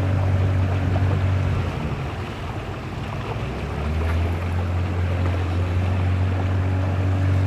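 River longboat's outboard motor running steadily over the rush of water. Its note eases and drops slightly about two seconds in, then picks back up about a second and a half later.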